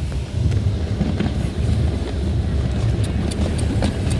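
Wind buffeting the microphone over the low rumble of a moving vehicle, with faint, short pops of distant fireworks scattered through it.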